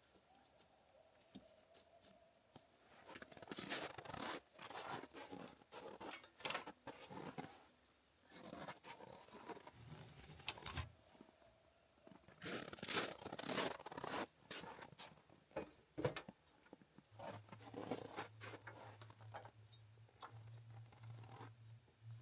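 Camping gear being handled in bursts of rustling, scraping and tearing-like sounds with a few knocks. A low steady hum joins about three-quarters of the way through.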